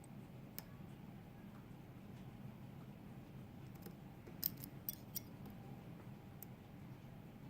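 Small metallic clicks of a lock pick working the inner pins of a Mul-T-Lock MT5+ cylinder, with a quick cluster of sharper clicks about four and a half seconds in, over a faint steady hum.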